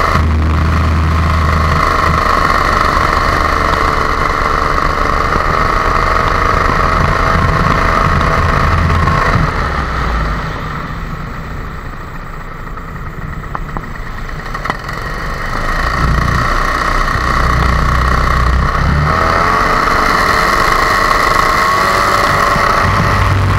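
Backpack paramotor's two-stroke engine and propeller running steadily in flight. Its sound drops for several seconds midway, then climbs back up as the pitch rises.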